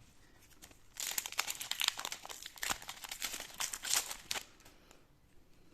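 Crinkly wrapper of a basketball trading-card pack being torn open and handled, a dense crackling lasting about three seconds.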